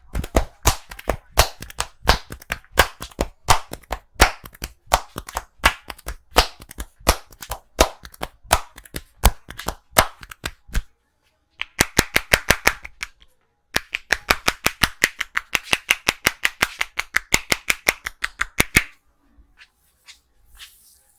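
Percussive massage strokes with the hands: sharp slaps and claps about three a second, then after a short pause two faster runs of quicker, hollower claps that stop suddenly near the end.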